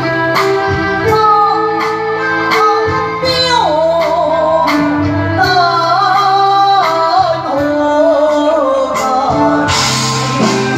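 A singer's voice, amplified through a handheld microphone, sings a Taiwanese opera (gezaixi) melody with wavering vibrato over a live backing band with sustained bass notes and drum hits.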